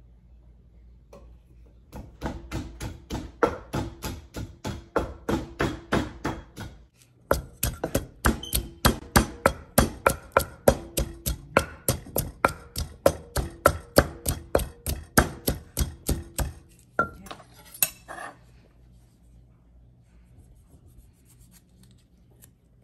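A wooden pestle pounding garlic and chilies in a clay mortar, in steady strikes about two or three a second. The pounding breaks off briefly about seven seconds in, resumes, and stops after about sixteen seconds, followed by a couple of knocks.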